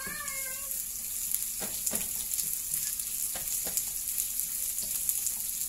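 Sliced onion and garlic sizzling in hot oil in a nonstick frying pan, a steady hiss, with a few scrapes and taps of a spatula stirring them.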